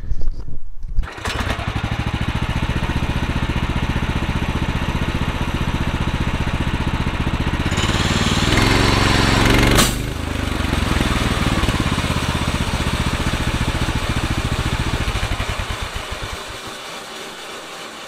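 Woodland Mills HM126 sawmill's gasoline engine starting about a second in and then running steadily. About 8 seconds in a louder, harsher stretch cuts off abruptly. The engine runs on, then winds down near the end as it is shut off.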